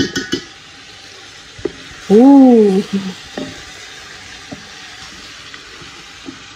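Chicken and yogurt sizzling as they fry in a large aluminium pot, a wooden spoon stirring through them and knocking against the pot, with a cluster of clicks at the very start. About two seconds in, a person's voice gives one short, loud sound.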